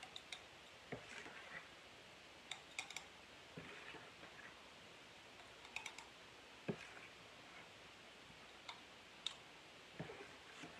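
Metal spoon tapping and scraping against a small glass latch-top mason jar and a mixing bowl as oat mixture is spooned in: scattered quiet clicks and knocks, a few close together.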